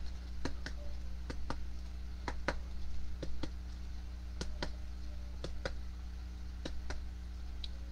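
Scattered light clicks and taps at an irregular pace, about twenty in all, over a steady low electrical hum.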